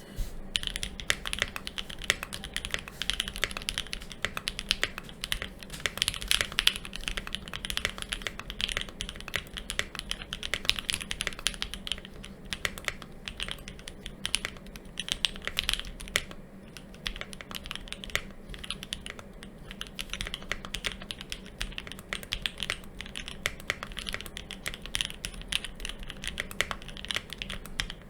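Typing on a mechanical keyboard with Durock L5 linear switches, lubed with Krytox 205g0 and fitted with switch films: rapid, continuous keystrokes giving a steady clacking.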